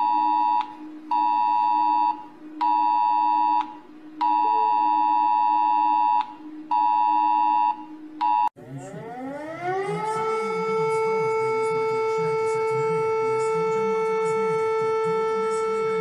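Romanian emergency-alert attention signal, the same dual-tone sound as the US Emergency Alert System tone, sounding in on-off blasts of about a second with short gaps. About eight and a half seconds in it cuts to a Lithuanian civil defense siren that winds up and holds one steady note.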